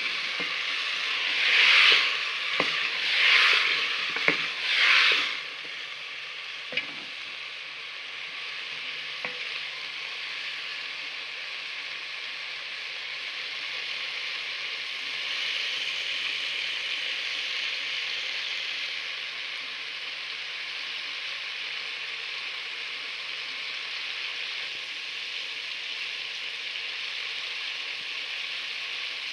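Potatoes and cauliflower sizzling as they fry in oil in a metal pot (degchi), the bhuna stage of aloo gobhi. In the first few seconds, stirring with a spoon brings several loud swells of sizzle and a few knocks on the pot. After that the sizzle runs on steadily.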